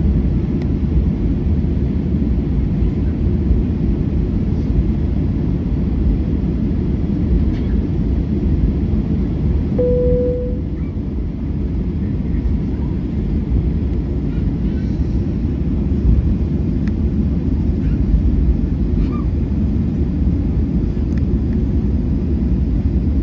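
Steady low rumble inside the cabin of a Boeing 737-800, from its CFM56 engines and the airframe, heard at a window seat over the wing. A single short steady tone sounds about ten seconds in.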